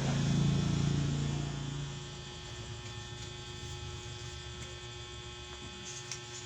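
A steady electrical hum, loudest for about the first two seconds and then settling lower, with a thin, higher steady tone joining about two seconds in.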